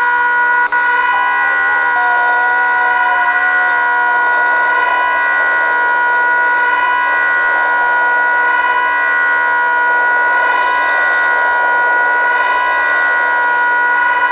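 A loud, steady alarm-like tone held without a break, several pitches sounding together, with a noisy rush building beneath it from about four seconds in and two short hissing bursts near the end.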